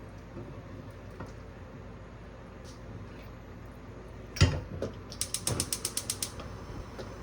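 A single clunk, then a quick, even run of about a dozen ratchet-like mechanical clicks lasting about a second.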